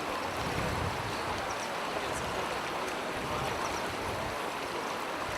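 Steady rushing of flowing floodwater, an even, unbroken wash of noise.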